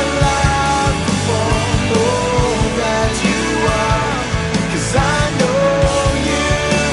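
Background rock-style music with a steady beat and a gliding melody line.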